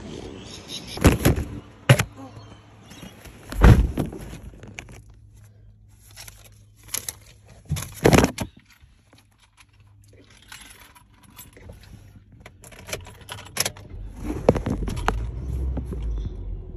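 Handling noises in a car: several sharp knocks and clicks with keys jangling, over a faint steady hum. A low rumble comes in near the end.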